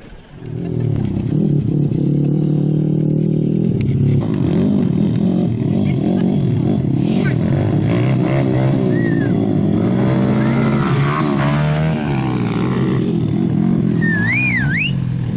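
Small dirt bikes' engines running and revving, the pitch rising and falling as they ride over rough ground. A few short high chirps come over them near the middle and again near the end.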